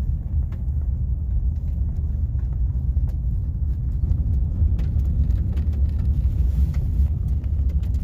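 Steady low rumble of a vehicle's engine and tyres on a snow-covered road, heard from inside the cab, with scattered light ticks.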